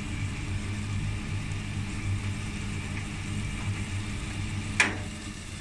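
Cooked bottle gourd sizzling softly in an open pressure cooker, under a steady low hum, with one sharp click near the end.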